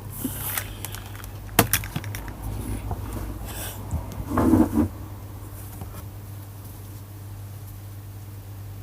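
A few scattered clicks and knocks of small objects being handled, with a short muffled thump or rustle about four and a half seconds in, over a steady low hum.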